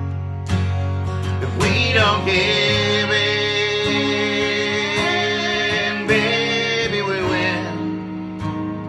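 A slow country-style pop song: a woman and a man singing held, sustained notes over strummed guitar accompaniment.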